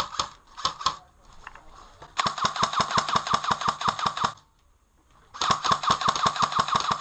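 Airsoft gun firing full-auto: a few quick shots near the start, then two long bursts of rapid, evenly spaced shots, the first about two seconds long and the second starting about a second after it ends.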